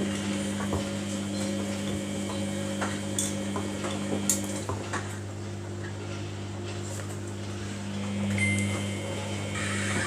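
Samsung front-loading washing machine running a wash: a steady motor hum that swells briefly near the end, with light scattered clicks and clinks from the drum.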